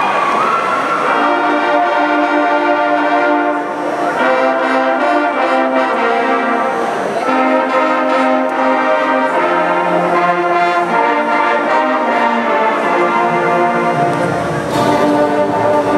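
Marching band playing a brass-led tune in sustained chords, with trumpets and trombones prominent. Deeper low brass fills in about 15 seconds in.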